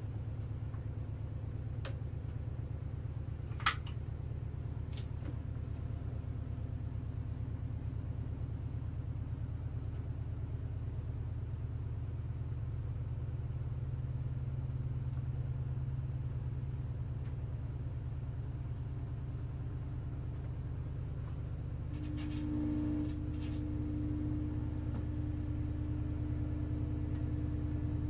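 Steady low electrical hum with two sharp clicks in the first four seconds as the vintage Admiral television is switched on. About 22 seconds in, a higher steady buzz joins the hum as the set warms up and its picture tube lights.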